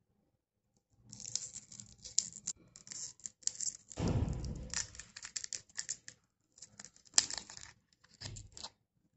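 A lollipop's wrapper crinkling and tearing as it is peeled off by hand: a dense run of sharp crackles starting about a second in, with a dull rubbing of hands near the middle.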